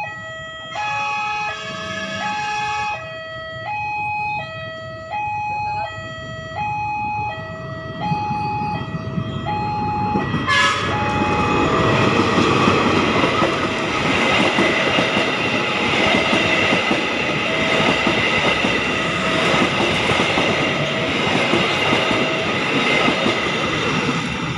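Level-crossing alarm sounding two alternating tones, switching about once a second; about a second in, the approaching diesel locomotive's horn sounds for about two seconds. From about ten seconds in, a KAI diesel locomotive and its passenger coaches pass close by with loud engine and wheel noise, the crossing alarm still sounding beneath it.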